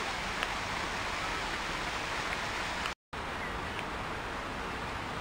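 Steady outdoor background noise, an even hiss with no clear single source. It drops out completely for a moment about three seconds in, then resumes.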